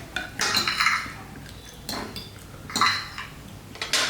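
Cutlery clinking and scraping against dishes, in about four short bursts.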